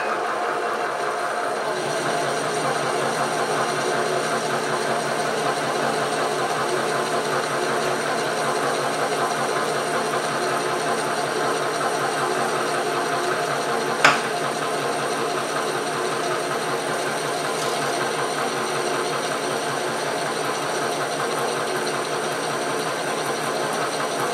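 SC2 mini lathe running steadily while turning a large aluminium workpiece, with a single sharp click about 14 seconds in.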